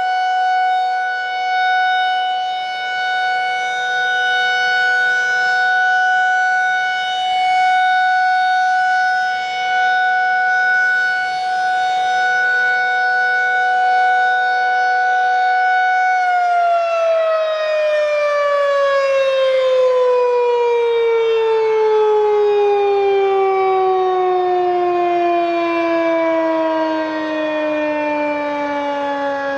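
Federal Signal 2001-SRN electromechanical outdoor warning siren holding a steady high tone. About halfway through it begins winding down, its pitch falling smoothly as the rotor coasts after power is cut.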